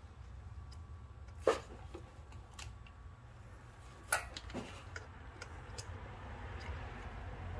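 Light handling of hand tools and a bolt on the engine: two sharp clicks, about a second and a half in and about four seconds in, with a few fainter ticks over a low steady hum.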